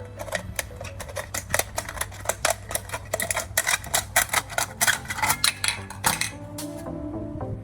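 A quick, irregular series of sharp clicks and taps, several a second, that stops about six seconds in, when background music with sustained notes comes up.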